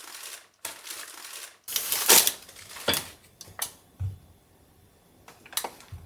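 Household objects being handled: a few irregular rustling swishes, the loudest about two seconds in, and several sharp clicks and knocks.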